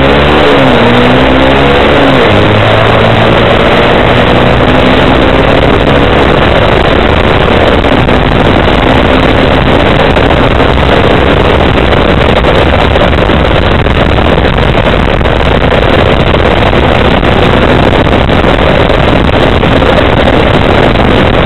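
Kymco Quannon 125 motorcycle engine running under way, buried in heavy wind and road rush on a bike-mounted camera's microphone. The engine pitch swings up and down in the first two seconds, then holds fairly steady.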